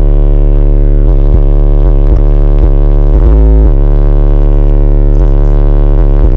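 Bass-heavy music played at extreme volume through a van's twelve 18-inch subwoofers, heard from inside the cabin: deep bass notes that shift in pitch every fraction of a second, overloading the recording into distortion.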